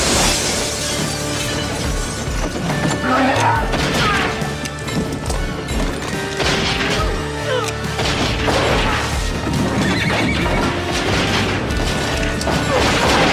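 Dramatic orchestral film score, with a horse whinnying and several loud bangs about every two to three seconds.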